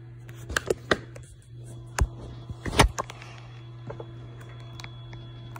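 Handling knocks and clicks, about five of them, the loudest two near two and three seconds in, over a steady low electrical hum.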